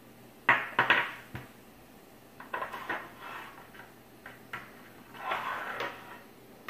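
Small glass essential-oil bottles being handled on a tabletop: a series of sharp clicks and knocks as bottles are set down and picked up and caps are worked, with some short scraping between them.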